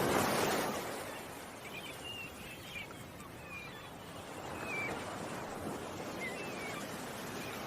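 Ocean waves washing on a shore, a surge fading after the first second and smaller swells later, with small birds chirping in short high calls scattered through the middle.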